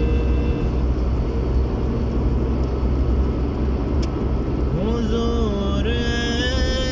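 Steady low rumble of a car's engine and tyres heard from inside the cabin while it drives along in traffic. A person's voice with drawn-out, bending tones comes in about five seconds in.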